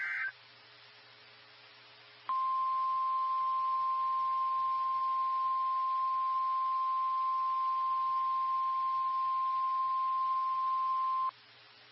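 NOAA Weather Radio warning alarm: one steady 1050 Hz tone. It starts about two seconds in, holds for about nine seconds and cuts off sharply. It is the tone that switches on tone-alert receivers, sounded here as the weekly test. At the very start the last fraction of a second of the digital data burst that precedes it is heard.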